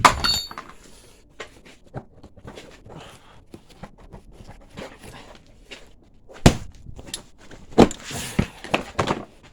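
Metal tools and motorbike parts being handled: a ringing metal clink at the start, then scattered light knocks and clicks, with a few louder clunks in the last three seconds.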